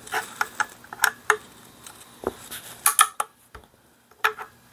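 Steel parts of a disassembled Rossi Gallery .22 pump rifle clicking and clinking as the bolt is fitted by hand into the open receiver. A scattered series of sharp metallic clicks, the loudest pair about three seconds in.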